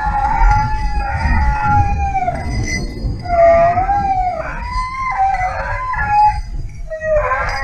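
Hare hounds giving tongue, long wavering howls that rise and fall in pitch, at times two voices overlapping, as they run the scent of a hare.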